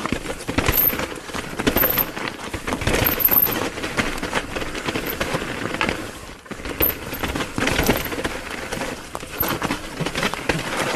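Mountain bike riding fast down a dirt forest trail: steady tyre and trail noise with many small knocks and rattles, and a brief lull about six and a half seconds in. It is heard through an action camera's microphones fitted with furry dead-cat windscreens.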